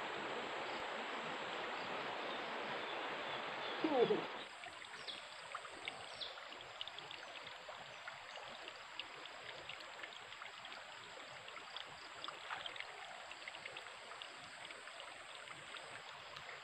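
Small river flowing, an even rush of water. About four seconds in comes a falling whoosh, and the sound changes abruptly to quieter water with many small ticks and chirps over a faint, steady high tone.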